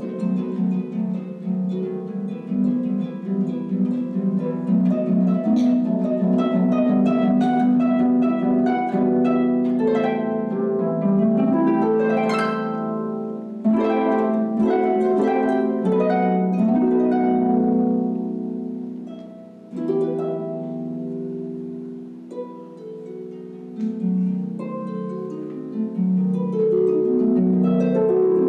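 Concert harp playing a slow piece: plucked notes and chords ringing over sustained low bass notes, with a flurry of quick notes about twelve seconds in.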